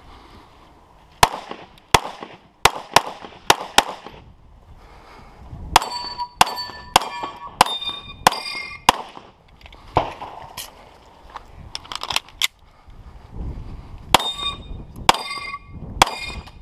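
SIG P320 X5 pistol firing a series of shots, a quick string of about six in the first four seconds, then further shots in pairs and bunches from about six seconds in. Many of the later shots are followed by the ringing clang of steel plate targets being hit.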